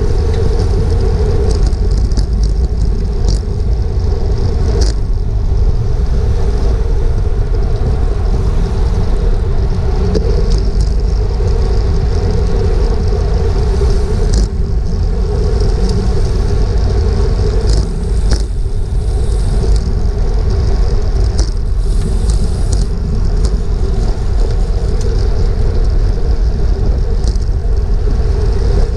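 Wind rushing over the microphone of a road bike's action camera at about 25 mph in a racing pack, with steady tyre noise on the pavement and a few sharp clicks.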